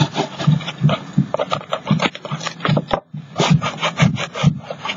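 Solid poster-paint stick rubbed back and forth across a canvas in quick rubbing strokes, about three a second, with a short break about three seconds in.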